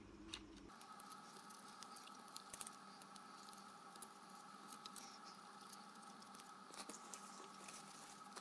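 Faint, scattered small clicks and scratches of fingers coiling thin wires inside an opened plastic drone remote controller, over a faint steady hum.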